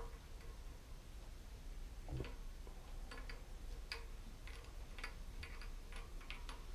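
A threaded fitting being screwed by hand into a shallow-well pump, giving faint, irregular clicks and ticks that begin about two seconds in, with one dull knock at the start of them.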